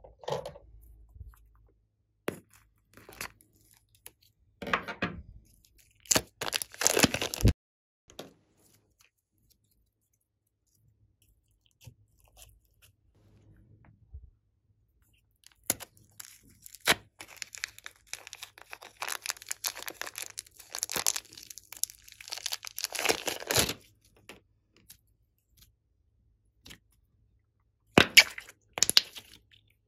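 Soft slime and clay squeezed out of a plastic piping bag and pressed by hand in a glass bowl, giving crackling, sticky squishing sounds in several bursts with quiet gaps. The longest burst runs for several seconds past the middle, and there is a short loud one near the end.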